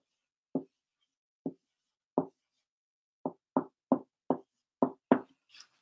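Dry-erase marker knocking against a whiteboard while numbers are written: about nine short knocks, spaced out at first, then coming quicker in the second half.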